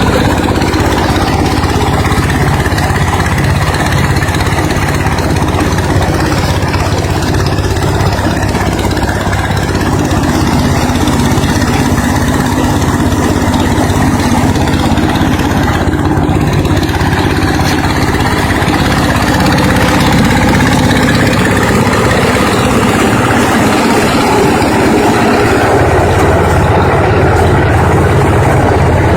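Engine-driven corn sheller running steadily, a machine that shells maize ears without husking them first. The low engine note shifts slightly about two-thirds of the way through and strengthens near the end.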